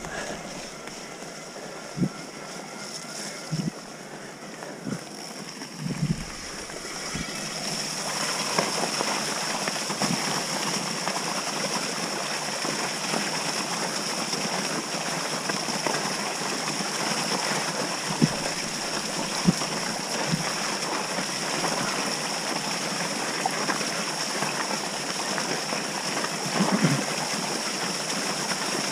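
Mountain bike ridden fast down a wet, muddy woodland trail: a steady rush of tyre and wind noise, louder from about eight seconds in, with occasional sharp knocks and rattles from the bike going over bumps.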